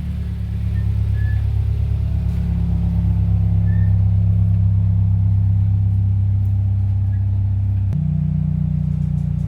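Car engine idling close by, a steady low hum; its note steps up slightly about eight seconds in.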